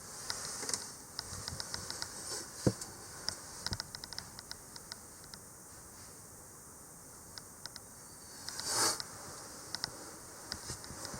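Scattered small clicks and light taps, like handling noise close to the microphone, with a soft thump about three seconds in and a brief rustle near the end.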